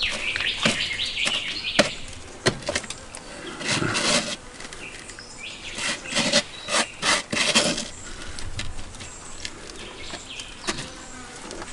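Hands rubbing and pressing a dry rosemary and sea salt rub into a beef roast on a rotisserie spit, and scraping the loose rub back up off the cutting board: irregular scratching and rustling strokes.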